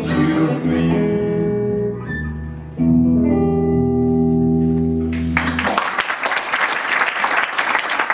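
A blues band of acoustic guitar, electric guitar and upright double bass ends a song on a final chord struck about three seconds in and held for a few seconds. The audience then applauds.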